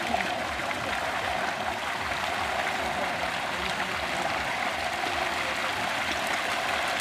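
Steady rush of water from a pipe pouring into a shallow fish pond, mixed with the splashing of a dense mass of young hybrid magur catfish churning at the surface.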